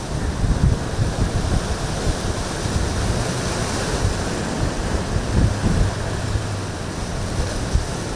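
Wind buffeting the microphone in a flickering low rumble, over the steady wash of choppy, breaking sea.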